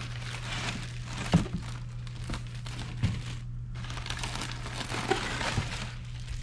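Brown kraft packing paper crinkling and rustling as bottles of motor oil are lifted out of a cardboard box, with a few knocks as the bottles are handled.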